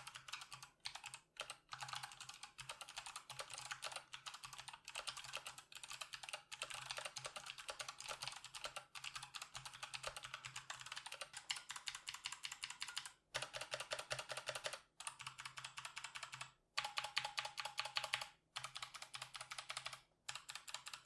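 Typing on a Patriot Viper V765 mechanical keyboard with Kailh White Box clicky switches: a fast, continuous run of sharp key clicks, each keystroke giving a distinct click, broken by a few brief pauses.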